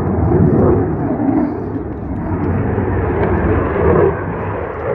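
Military fighter jet flying overhead: a loud, steady jet roar.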